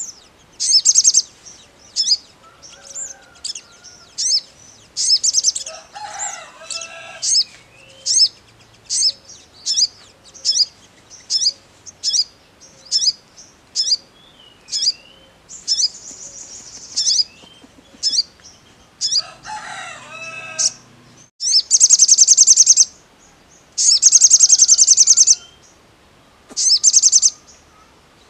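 Male olive-backed sunbird calling: sharp, high chips about once a second, broken in the second half by several longer, fast twittering trills. A fainter, lower call sounds twice in the background, about six seconds in and again around twenty seconds.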